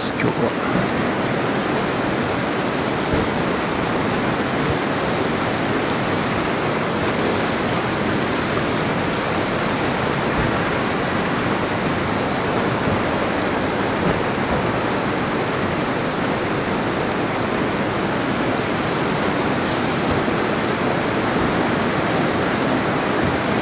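Rain falling steadily, an even noise with no breaks.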